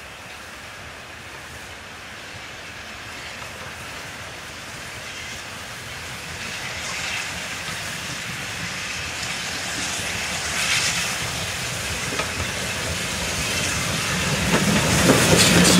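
A4 Pacific steam locomotive 4464 Bittern and its train approaching on the adjacent track, growing steadily louder until it runs close by near the end, its wheels clattering over the rail joints.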